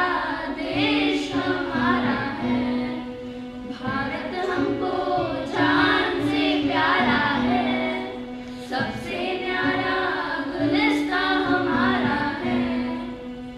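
A small group of school children singing a Hindi song together into microphones, with long held notes between phrases.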